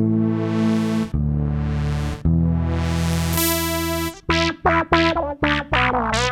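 Electric bass guitar played through effects pedals with a synth-like tone: three held notes of about a second each, then a brighter run of short, quick notes.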